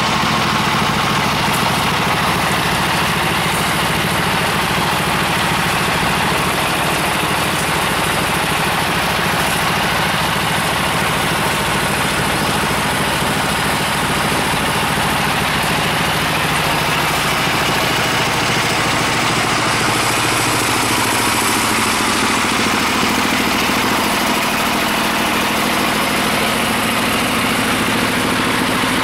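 An engine running steadily, its low note changing about twenty seconds in.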